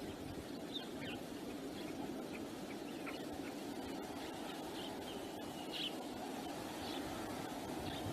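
Steady wind noise with short, high bird chirps scattered through it, a louder one about six seconds in.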